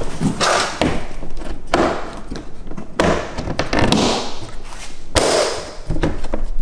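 Plastic clips of a Tesla Model 3's active cooling shroud snapping into place on the radiator and fan-shroud module as hands press it down: several sharp clicks and knocks, with the scrape and rub of the plastic parts being handled in between.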